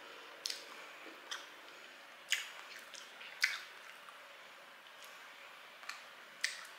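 A person chewing food close to the microphone, with about six short, wet mouth smacks spread unevenly between quiet stretches.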